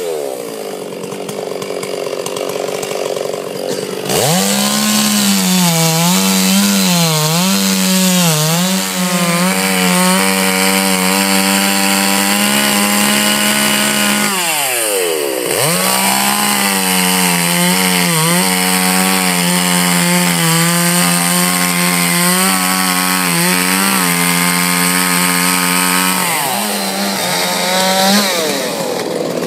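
Two-stroke Stihl chainsaw cutting through a log at full throttle. The engine revs up sharply about four seconds in, its pitch wavering before settling into a steady high note. It drops and revs back up about halfway through, and dips and climbs again near the end.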